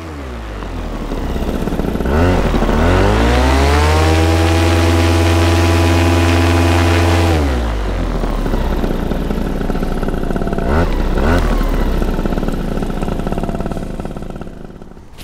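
Vittorazi Atom two-stroke paramotor engine being warmed up. It runs low, is revved up about two seconds in and held at high revs for about five seconds, drops back to idle, is blipped twice, and dies away near the end.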